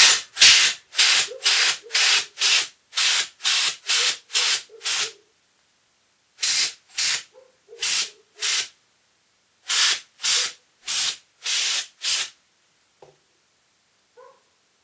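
A blade scraping out the slots between the copper commutator segments of a DeWalt 18 V cordless drill motor's armature, in quick back-and-forth strokes about two a second, in three runs with short pauses between. The scraping clears packed debris from between the segments of a scored commutator.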